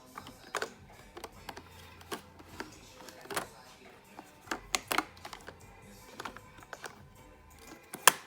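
Irregular light plastic clicks and knocks from handling the robot vacuum's parts, the loudest a sharp knock near the end.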